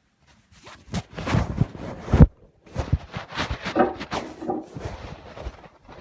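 Porcelain toilet tank lid being lifted off and handled: a series of hard ceramic knocks and scraping, the loudest knock a little after two seconds in, with a ringing scrape about four seconds in.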